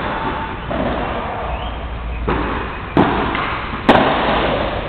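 Padel ball struck by rackets and rebounding in play: three sharp knocks, the last two loudest and about a second apart.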